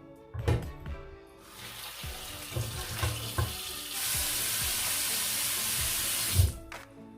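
Kitchen tap running into a sink, the flow turned up harder about four seconds in and shut off suddenly about six and a half seconds in.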